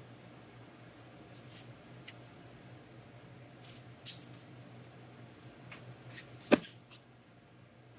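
Metal canning lids being handled by hand: scattered soft clicks and rustles, with one sharp click about six and a half seconds in, over a faint low hum.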